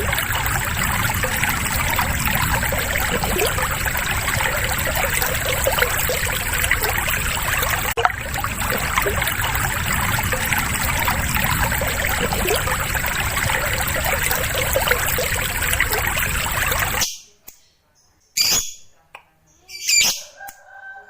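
Lovebirds chattering over a steady rush of running water. It cuts off sharply about three-quarters of the way through, and a few separate sharp bird calls follow in near silence.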